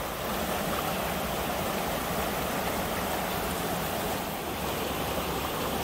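Creek water rushing steadily.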